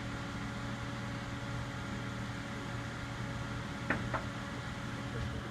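Steady mechanical hum with a few fixed tones, broken by two short clicks in quick succession about four seconds in.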